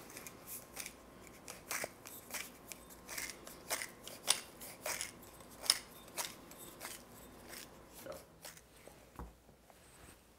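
Hand-twisted pepper mill grinding peppercorns: quick, irregular crunching clicks with each turn, stopping about three quarters of the way through.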